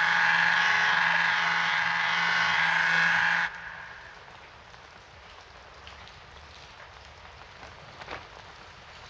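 A loud steady hum with a high whine cuts off abruptly a few seconds in. Rain then falls steadily on hard surfaces, with a faint drip or tap now and then.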